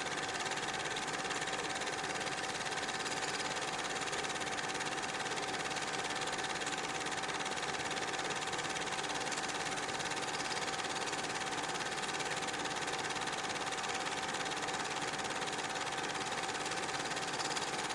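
8mm film projector running: a steady mechanical whir with one constant tone in it, unchanging throughout.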